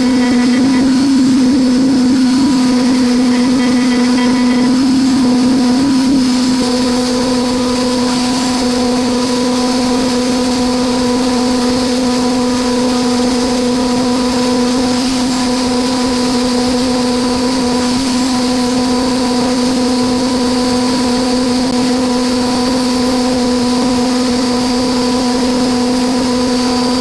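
ATC CNC router spindle running at a steady high pitch while a V-carve bit engraves numbers into 18 mm white melamine MDF.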